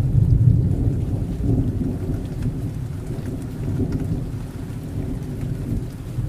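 Heavy rain pouring steadily under a deep, rolling rumble of thunder, loudest in the first second and slowly easing off.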